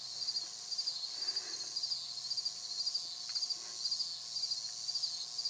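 Insects, likely crickets, chirping in a steady, rapidly pulsing chorus. Faint soft puffs come from a tobacco pipe being drawn on as it is lit.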